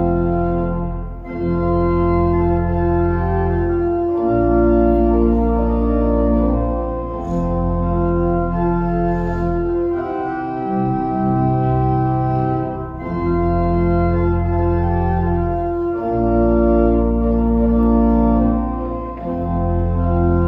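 Organ playing slow, sustained hymn-like chords over held bass notes, the chords changing every two to four seconds.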